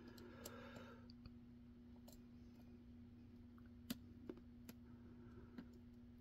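Faint, scattered clicks of a lock pick working the pins inside a pin-in-pin padlock (a Mighty Lock MTL clone), with the sharpest click about four seconds in, over a low steady hum.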